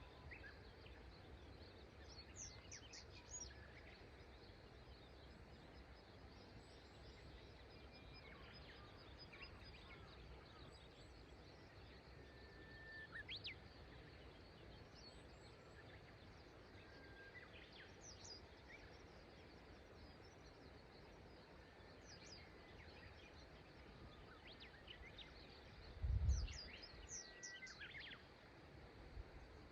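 Faint wild birdsong, scattered short chirps and trills from several birds, over a steady quiet rush of river water. One brief low thump near the end.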